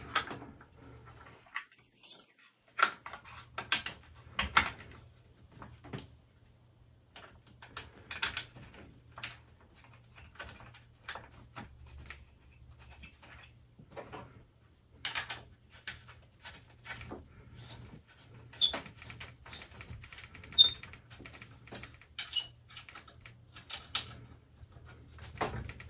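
Scattered clicks, taps and light rattles of plastic and small metal parts: the rear fender of a Ninebot Max electric scooter being put back on and its bolts fitted by hand. The sharpest click comes about twenty seconds in.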